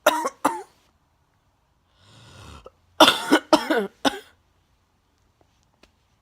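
A person making short explosive cough-like bursts: two at the start, then a drawn-in breath about two seconds in, followed by a quick run of four loud bursts.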